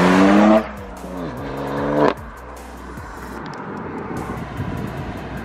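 BMW F80 M3's twin-turbo S55 inline-six with SSR downpipes pulling hard past: the engine note climbs, drops sharply about half a second in, climbs again, and cuts off abruptly about two seconds in. After that the car runs on much quieter.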